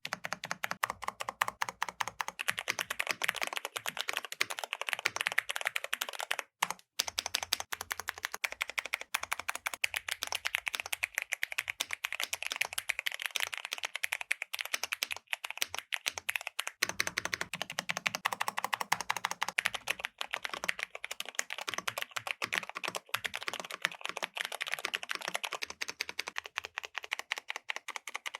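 Mechanical keyboard with Cherry MX switches being typed on quickly and continuously, a rapid run of key clicks and bottom-outs. There is a brief pause about a quarter of the way in.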